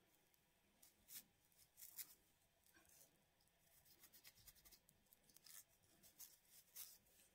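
Fine-toothed plastic comb scraping thick psoriasis scales off the scalp: a series of short, faint, irregular scratching strokes.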